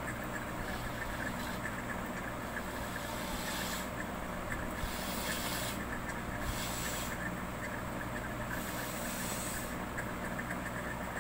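Steady low mechanical hum with a layer of hiss.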